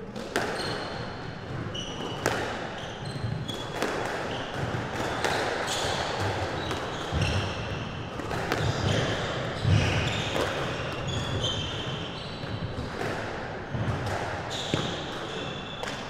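Squash rally: the ball struck by racquets and smacking off the court walls in sharp cracks about every second, with short high squeaks of court shoes on the wooden floor between shots.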